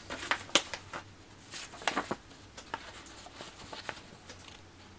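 Paper assembly instruction sheet being unfolded and handled, with scattered crisp rustles and crackles. The sharpest come about half a second in and near two seconds in.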